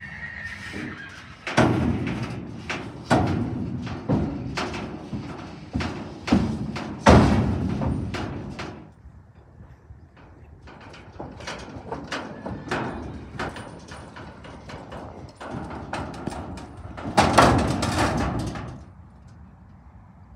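Horse's hooves clomping and knocking on a stock trailer floor as a filly is led through the trailer and out, with irregular heavy steps in the first half and a louder clatter near the end.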